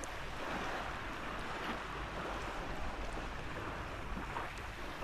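Steady wash of wind and small waves lapping in shallow sea water, with no distinct events.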